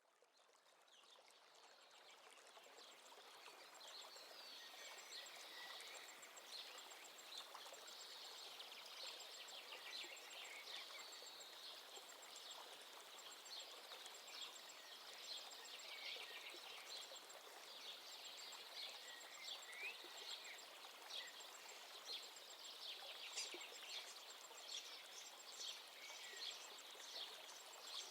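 Faint birds chirping over a light hiss, many short high calls and a repeating high note, fading in over the first few seconds.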